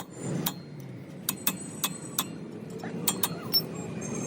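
A run of sharp, irregular metallic clicks over a low steady rumble.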